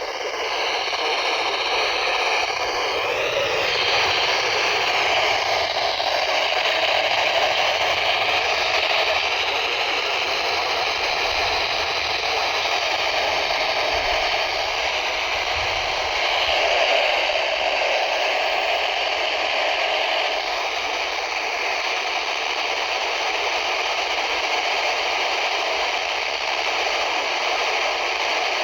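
Radio receiver static: a steady hiss from an FM radio with no clear signal coming through, with faint wavering whistles in it during the first few seconds.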